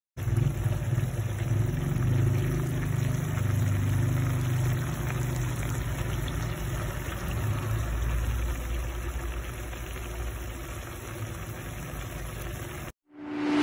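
A steady low rumbling hum with a faint hiss over it. It fades somewhat in the second half and cuts off suddenly near the end.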